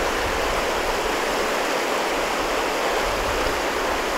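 Klamath River running fast through a shallow whitewater riffle: a steady, even rush of water that does not change.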